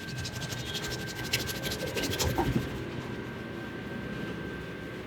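Hands rubbing and scratching quickly through the hair and scalp in a head massage: a fast run of light scratches for about the first three seconds, then softer.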